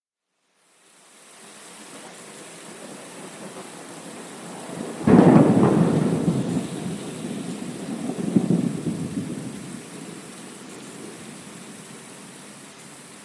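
Rain fading in, then a sudden thunderclap about five seconds in. It rolls into rumbling thunder that swells once more a few seconds later before dying away under steady rain.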